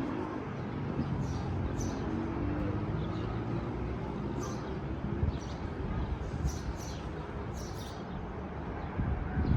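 Steady rumbling wind noise outdoors, with a few faint, short high chirps scattered through it.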